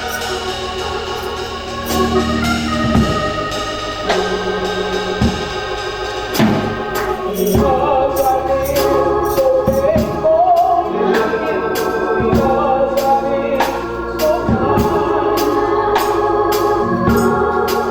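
Gospel music from a church band: organ chords with regular drum strikes, and a wavering melody line, likely a voice, coming in about seven seconds in.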